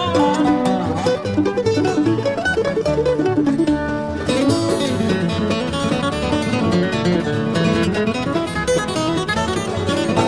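Instrumental bluegrass band music: a sliding dobro lead over picked acoustic guitar, banjo and bass, with pitches gliding up and down.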